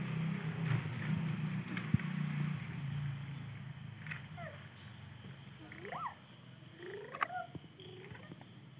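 Coconut shells burning in an open stone hearth, with a few sharp crackles. A low steady hum fades out about three seconds in, and a few short rising-and-falling calls come in the second half.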